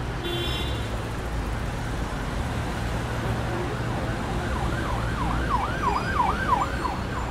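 A steady low rumble with a siren sound effect joining about four and a half seconds in, its pitch swinging quickly up and down, about three or four sweeps a second.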